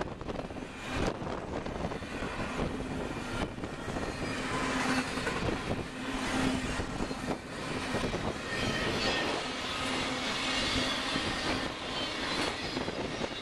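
Double-stack intermodal container cars rolling past on steel rails: a steady rumble and rattle of wheels and cars. In the second half, faint high wheel squeal joins in.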